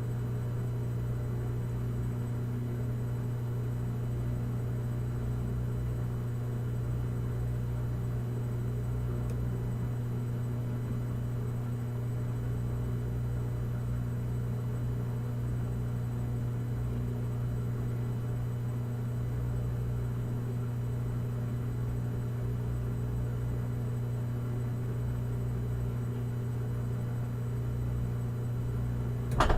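Washing machine running with a steady motor hum and an uneven low rumble underneath, and a sharp click near the end.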